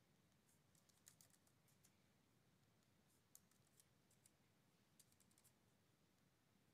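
Very faint computer keyboard typing over near silence: three short runs of keystrokes, about half a second in, just past three seconds and about five seconds in.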